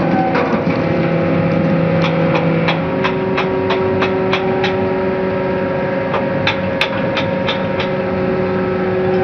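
Hydraulic truck-tipping platform running as it tilts a beet-loaded trailer: a steady machine hum whose pitch shifts about three seconds in, with runs of sharp knocks, two or three a second.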